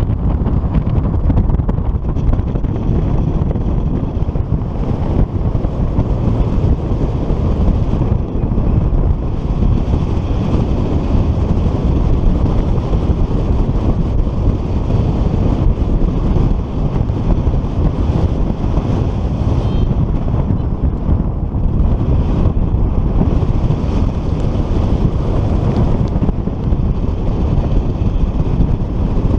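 Rushing airflow from paraglider flight buffeting an action camera's microphone: loud, steady wind noise, heaviest in the low end.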